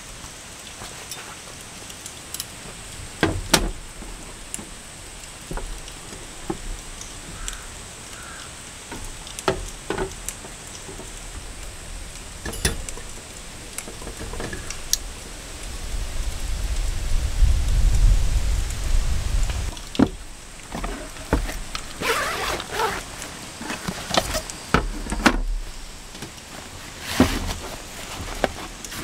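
Steady rain, with the clicks, knocks and rustles of camping gear being handled and packed by hand. A low rumble swells about fifteen seconds in and dies away by twenty, the loudest thing here.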